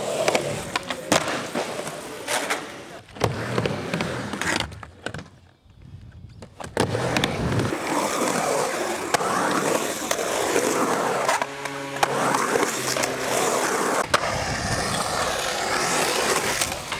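Skateboard urethane wheels rolling on concrete in a skatepark and bowls, with repeated sharp clacks of the board and trucks striking the surface. The sound drops away briefly about five seconds in, then carries on. A short pitched sound comes in just past the middle.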